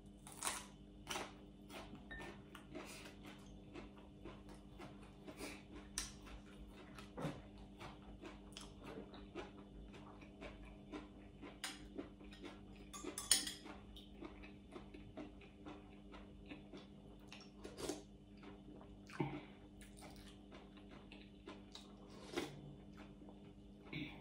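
Faint eating sounds: chewing and mouth noises, with scattered light clinks of a metal spoon against a bowl and a louder cluster of clatter about halfway through, over a steady low hum.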